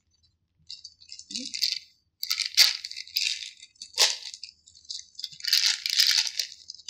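Plastic bag of dark chocolate chips crinkling and rustling as it is opened and handled, in several bursts, with a sharp crackle about four seconds in.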